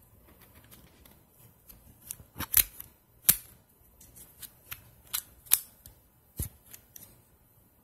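Irregular sharp plastic clicks and snaps from a small automatic cable winder being handled, about a dozen of them, several loud ones spaced through the middle of the clip.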